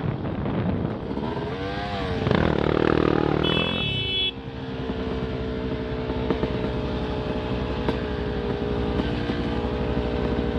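Off-road motorcycle engine, revving up and down about two seconds in, then settling into a steadier running note.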